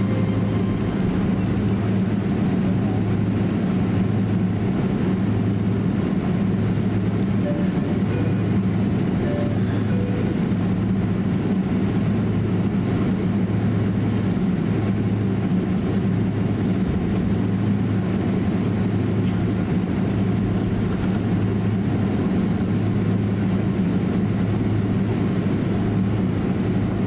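Steady low cabin rumble inside a Boeing 767-300 taxiing, its jet engines at low thrust. A deep hum swells and fades a little every couple of seconds.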